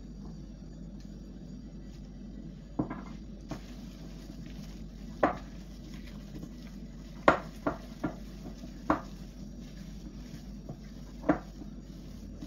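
Kitchen utensils and dishes clinking and knocking during baking prep, about eight separate knocks at irregular moments, over a steady low background hum.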